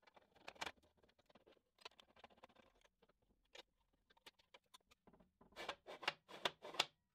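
Small metal clicks and short scrapes of bolts being fitted and an Allen key turning socket-head screws on a flange bearing mount, with a run of louder scraping strokes about five seconds in.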